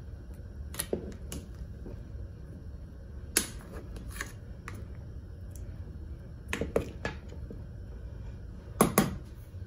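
Metal ladle clinking against the side of a stainless steel stockpot while stirring a shrimp boil, several sharp knocks at irregular intervals with the loudest near the end, over a steady low rumble.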